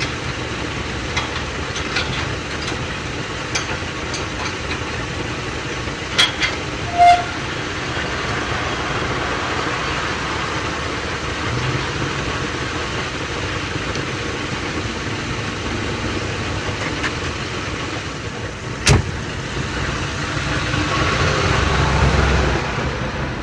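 Steady motor-vehicle noise with low rumble, broken by a few sharp clicks and a short high beep about seven seconds in; the rumble grows louder near the end.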